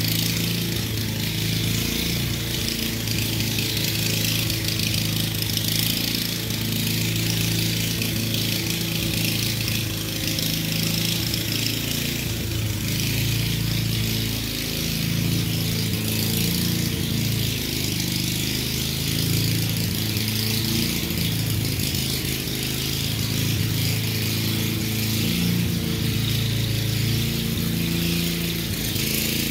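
A small engine running steadily at an even speed, with a hiss over it.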